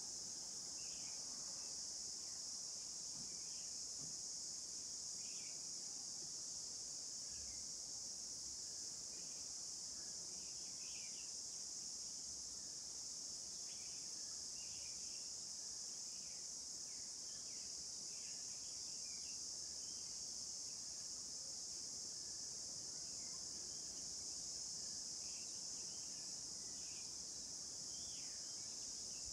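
Steady, high-pitched insect chorus, with scattered short chirps over it.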